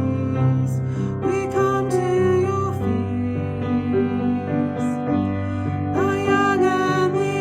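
Slow, gentle hymn music: long held notes over a steady accompaniment, with a voice sliding into new notes about a second in and again near the end.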